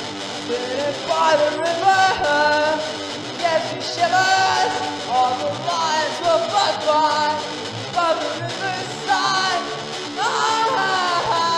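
Folk punk song: a voice sings over a strummed guitar, the singing coming in about a second in.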